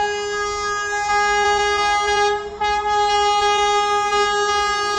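Horn of the approaching Vande Bharat Express sounding in two long, loud blasts, with a short break about two and a half seconds in.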